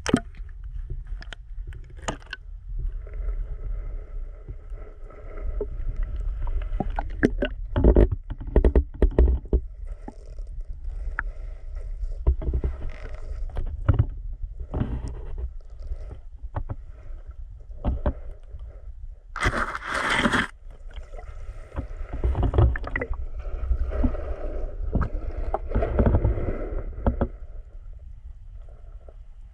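Muffled sloshing and low rumble of shallow seawater heard through a camera held underwater, with scattered clicks and knocks. One brief, louder rush of water comes about two-thirds of the way through.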